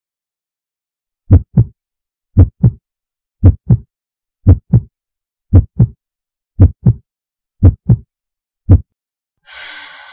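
Heartbeat sound effect: slow, deep double thumps (lub-dub) about once a second, seven pairs and then a single beat. A short rushing noise follows near the end.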